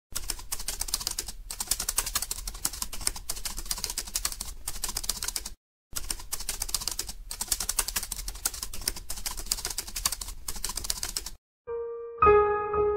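Typewriter sound effect: rapid keystroke clicks with a short pause about halfway, stopping near the end as piano music comes in.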